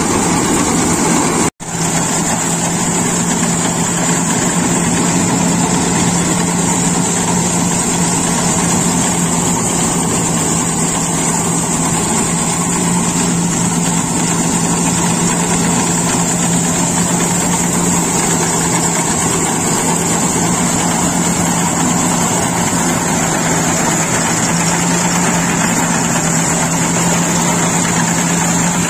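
Iseki HC 80P rice combine harvester running steadily as it cuts through the crop. A constant engine drone carries a high hiss above it, broken by a brief dropout about a second and a half in.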